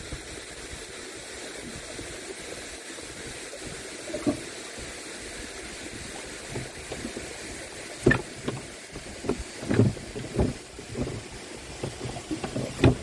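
Canoe paddle strokes in the water over a steady hiss of wind and water, with a run of short, uneven splashes and knocks in the last few seconds.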